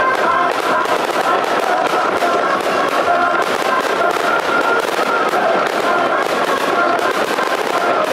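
Fireworks display: a dense, continuous barrage of crackling and popping bursts with no pause.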